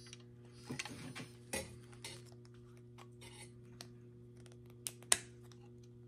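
Scattered small metal clicks and clinks of pliers and trap chain as a hog ring is bent closed onto the chain, with one sharp click about five seconds in. A steady low hum runs underneath.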